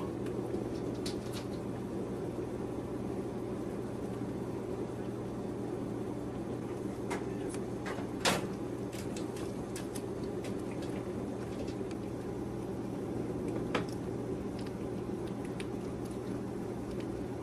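Newborn puppies suckling at their mother: scattered soft wet clicks and smacks, one sharper about eight seconds in, over a steady low hum.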